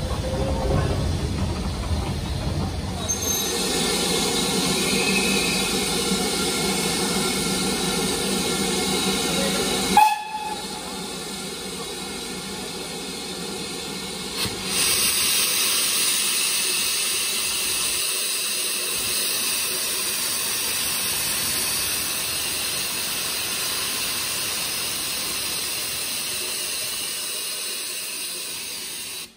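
Steam hissing steadily from a BR Standard Class 4 2-6-4 tank locomotive standing at rest. There is a low rumble in the first few seconds and one short sharp sound about ten seconds in; a louder, higher hiss begins about halfway and slowly fades.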